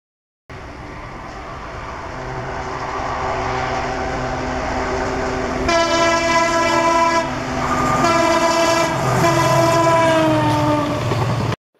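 Indian Railways diesel locomotive approaching with its engine running and the train rumbling on the rails, growing louder, then sounding its air horn three times, the last blast gliding down in pitch as it passes. The sound cuts off abruptly.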